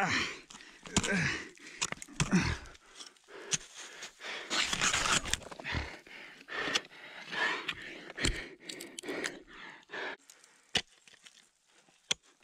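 Ice climber kicking crampon points into an icefall and planting ice axes: a run of sharp, irregular strikes and scrapes on ice, mixed with heavy panting breaths.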